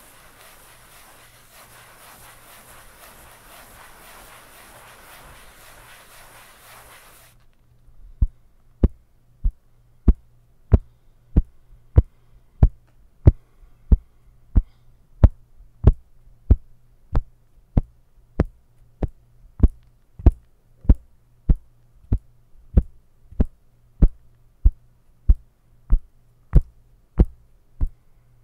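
Close-up handling of a flexible tan strip: a soft rubbing, scratchy noise for the first seven seconds. Then comes a long run of sharp, deep thumps in an even rhythm of about three every two seconds.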